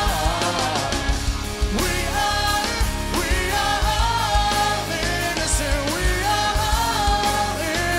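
Live rock song: a male lead singer holding long sung notes over a full band with a steady drum beat.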